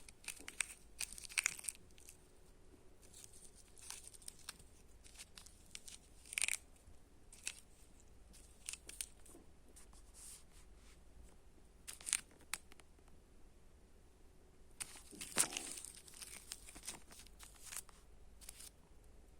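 Candy wrapper crinkling and rustling in irregular short bursts, the loudest about fifteen seconds in.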